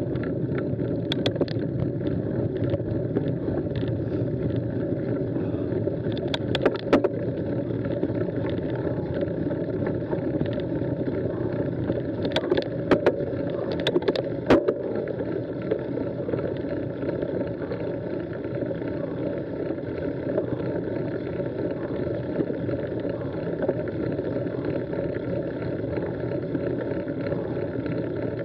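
Mountain bike climbing slowly on a gravel track: a steady low rumble of tyres on gravel, with a few sharp clicks and rattles, mostly around the middle.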